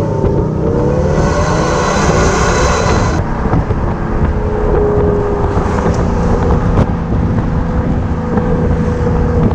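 Diesel Maserati Levante on the move, with a Maxhaust active sound system playing a synthetic V8 exhaust note through speakers at the tailpipes, over road and wind noise. The note rises in pitch over the first three seconds as the car accelerates, then runs steadier.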